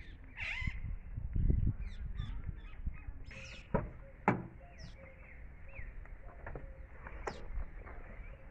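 Birds chirping and calling with short, scattered high notes. Two sharp clicks about half a second apart near the middle stand out above them.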